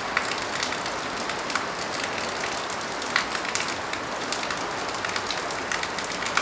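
Steady night rain on a corrugated tin roof and wet leaves: a continuous hiss with many separate drop ticks scattered through it.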